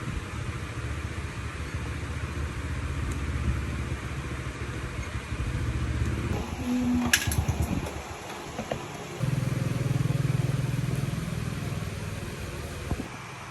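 A low, steady motor running. A sharp click comes about seven seconds in. The running sound gets louder from about nine seconds and drops away a moment before the end.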